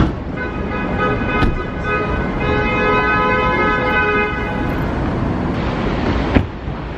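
Car horn honking, several short honks running into one long held honk. A sharp knock sounds near the end.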